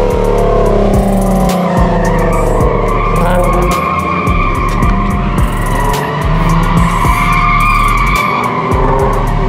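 Car tyres squealing on asphalt as a car does a burnout or donuts, a steady wavering screech over the engine held at high revs.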